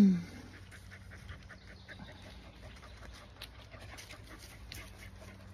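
A dog panting faintly, a soft run of short breaths.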